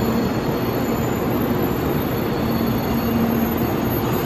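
Kyushu Shinkansen 800 series trainset moving slowly along the platform: a steady rumble of wheels and running gear, with a low motor hum that comes and goes.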